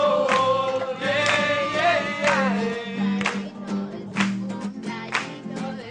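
Acoustic guitars strummed while a group of young voices sings along. A sung note is held at first, then strummed chords fall about once a second.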